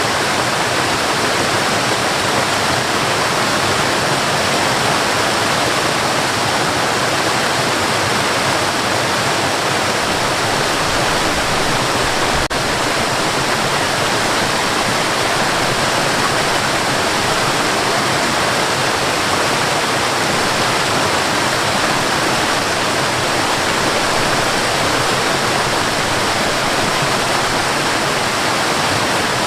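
Waterfall: water falling and rushing in a steady, unbroken roar of even noise.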